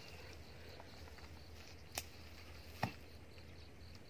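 Faint steady background with two brief light knocks, a little under a second apart, near the middle.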